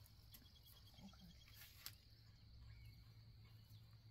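Near silence: faint outdoor ambience with insects chirring, a short rapid pulsing trill about half a second in, and one soft click near the two-second mark.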